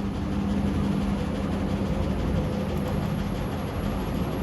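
Steady low mechanical hum with a held droning tone, background machinery noise with no distinct clicks or scrapes.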